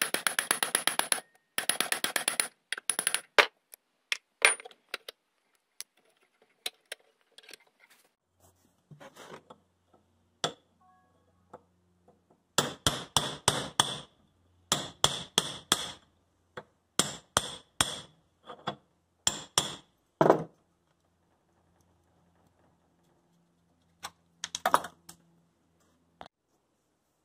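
Hammer blows on a steel punch driving the old wooden handle out of the eye of a rusty hatchet head clamped in a bench vise, metal on metal with a ringing tone. The blows come in quick runs of four to six, with one heavier blow a little past two-thirds of the way through.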